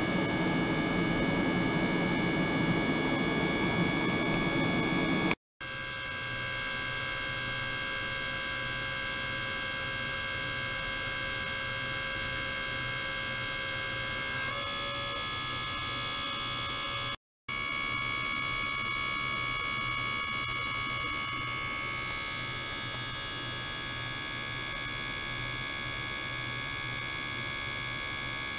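Ultrasonic transducers in a water-filled stainless tray, driven by a function generator: a steady electrical hum with several high, fixed whining tones. The mix of tones changes a few times, and the sound cuts out briefly twice.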